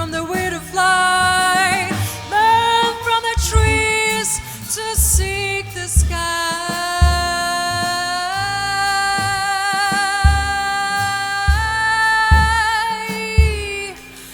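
Live jazz song: a woman singing over a band with a steady low bass beat. About halfway in she holds one long note, which drops away near the end.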